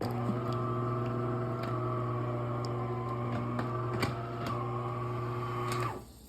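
DeLonghi Magnifica S espresso machine's vibratory water pump running during a rinse cycle: a steady low buzzing hum with a few light clicks, starting abruptly and cutting off just before the end.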